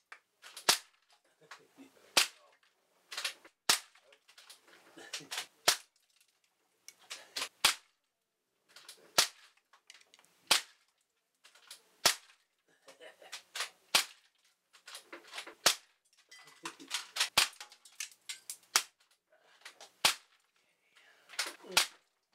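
Hammerli 850 AirMagnum CO2 air rifles firing repeatedly, about fifteen sharp cracks roughly every second and a half. Each crack comes with smaller clicks and rattles of pellets hitting the plastic model target and the debris around it.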